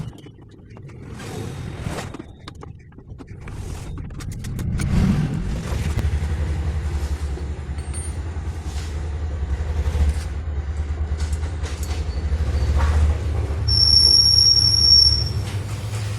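An engine starts up about five seconds in and runs steadily with a low rumble, with scattered clicks and a short high beep near the end.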